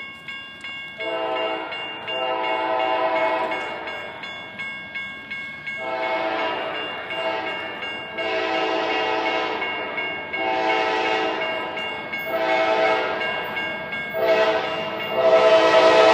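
Locomotive five-chime K5LA air horn sounding one long blast, then a run of shorter blasts, the last the loudest as the train draws near, over level-crossing bells ringing at the start.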